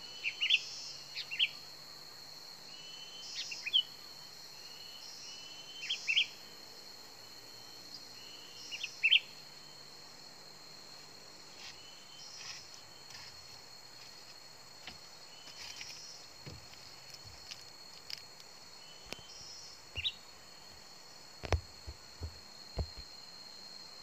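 Sooty-headed bulbul (kutilang) giving short, bright chirping calls about every second, thinning out after about ten seconds, over a steady high insect drone. A few sharp knocks near the end.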